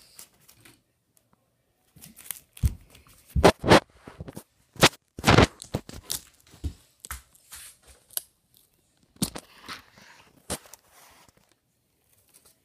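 Handling noise: irregular sharp knocks, clacks and rustling, most of them between about two and eleven seconds in, as the camera is moved about over the toys.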